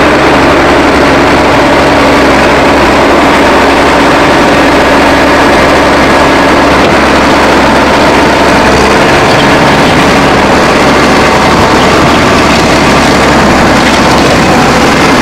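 Case IH Magnum 180 tractor's diesel engine running steadily while its front loader bucket pushes snow and ice.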